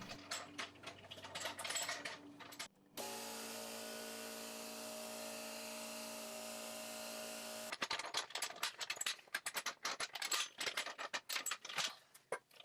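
Light clicks and handling knocks, then about three seconds in a small motor starts a steady, even hum that stops suddenly some five seconds later, followed by more scattered clicks.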